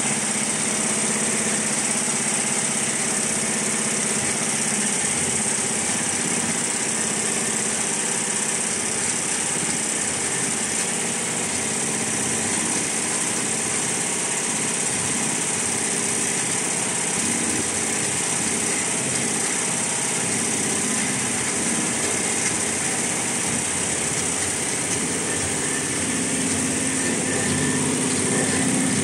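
Richpeace multi-head computerized embroidery machine running, its needle heads stitching in a steady, unbroken mechanical run with a high hiss over it.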